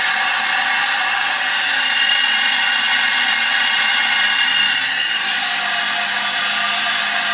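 Magnetic tumbler running at high speed: a 1/3 hp DC motor spins neodymium magnets under a bucket, churning stainless steel pins through water in a steady, hissy whir.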